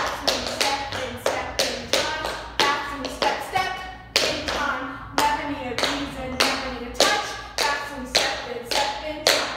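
Tap shoes striking a wooden floor, about two to three sharp taps a second in a dance-step rhythm, with a young girl's voice singing along over the steps.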